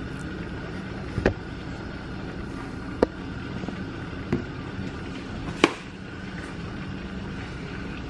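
Steady rushing hum of a large stainless stockpot steaming on a gas range, broken by four sharp metal clinks of the pot and its lid being handled.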